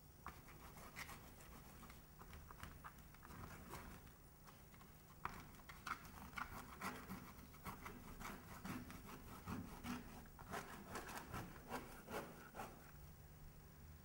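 Faint paintbrush scrubbing across a canvas in many short strokes, which come thicker about five seconds in and stop near the end.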